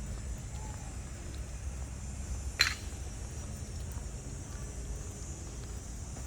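Outdoor ambience: a steady low rumble and a steady high hiss, with a single sharp click about two and a half seconds in.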